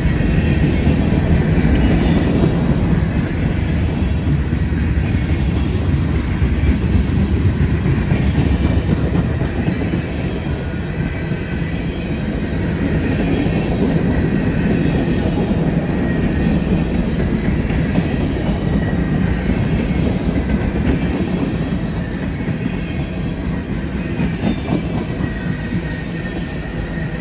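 Union Pacific manifest freight train's cars, covered hoppers and tank cars, rolling past close by: a loud, steady rumble and clatter of steel wheels on rail, with faint high squealing tones coming and going.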